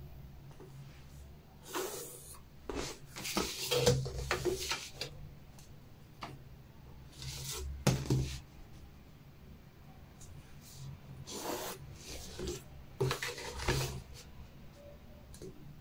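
A clear plastic ruler and a red pen rubbing and scraping over pattern paper on a table as lines are ruled, in several short bursts.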